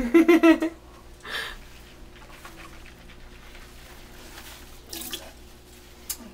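A girl's short, loud excited vocal burst at the start, then a quiet small room with faint rustles, including a crinkle of a paper dental bib being handled near the end.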